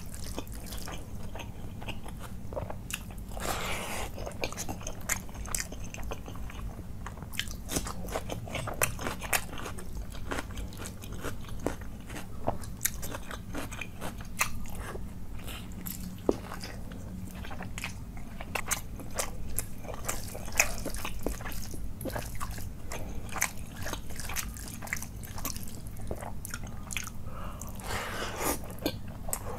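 A person eating chicken leg curry and rice by hand: fingers mixing rice into the wet curry on the plate, and biting and chewing chicken and rice, with many short sharp mouth clicks.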